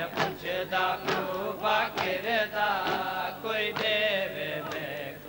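Men chanting a Shia nauha (lament) in unison, with chest-beating (matam) slapping in time about once a second.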